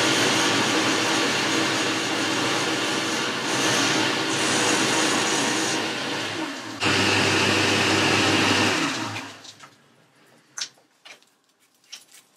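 Boxford metal lathe running, turning a metal bar with the cutting tool, a steady machining noise. About seven seconds in the sound changes abruptly to a deeper hum, which dies away about nine seconds in, leaving a few light clicks.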